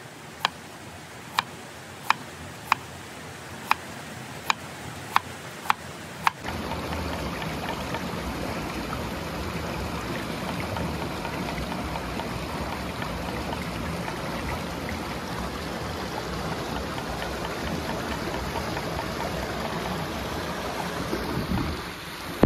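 A cleaver chopping a vegetable on a wooden cutting board: about nine sharp, separate knocks at an uneven pace. About six seconds in, the chopping gives way abruptly to the steady, even rushing of a stream and small waterfall pouring into a pool.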